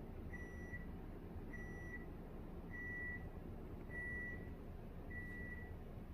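Electronic beeper sounding five times: a single steady high-pitched beep about half a second long, repeating about every 1.2 seconds and stopping near the end, over faint low background noise.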